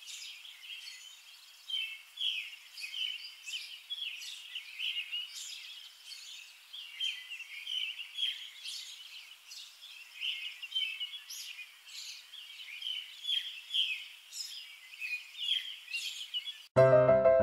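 Small birds chirping, a busy run of short high chirps with nothing deep beneath them. Piano music cuts in abruptly near the end.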